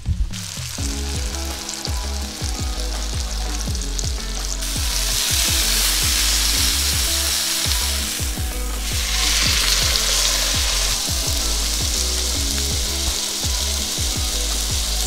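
Venison backstrap searing in very hot oil in a frying pan: a steady sizzle that grows louder about four seconds in and dips briefly near the middle.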